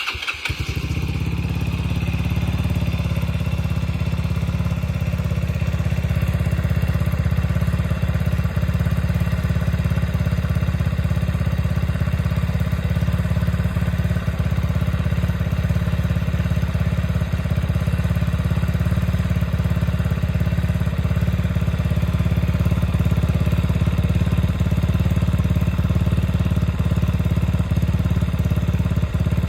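Yamaha Mio Sporty scooter's single-cylinder four-stroke engine, with a 59 mm big-bore block, stock carburettor and an unmodified MT8 aftermarket exhaust pipe, starts up and idles steadily through the pipe.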